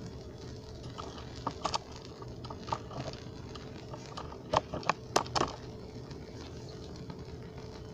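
Fatwood shavings burning in a metal pan, crackling with scattered sharp pops, the loudest a cluster about four and a half to five and a half seconds in, over a steady low hum.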